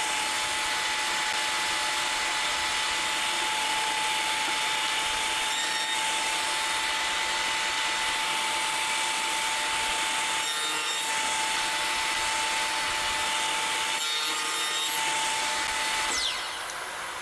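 Electric sander running steadily with a constant whine while sanding down a beech spline strip that fits too tightly in its groove. Switched off about a second before the end, winding down with a falling pitch.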